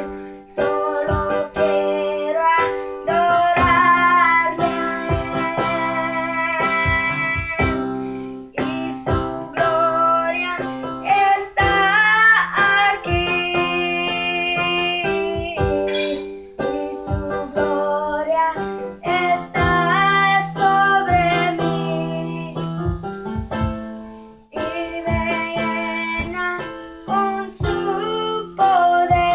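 Electronic arranger keyboard playing an instrumental passage: a held, pitched melody with some sliding, bending notes over a steady drum-style backing rhythm.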